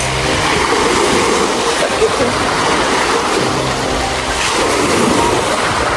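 Small waves breaking and washing up a pebble beach in a steady rush of surf.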